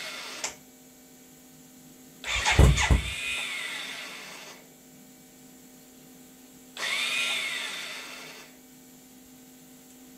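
Electric starter cranking the BMW K100's four-cylinder engine in bursts of about two seconds, two full attempts a little over four seconds apart, without the engine starting. The cranking sounds off, which the owners take as a sign that there might be something wrong with the starter motor.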